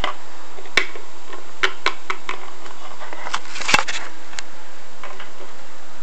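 Scattered light clicks and taps of small plastic toy figurines being moved on a table, with the loudest clatter a little before four seconds in, over a steady hiss.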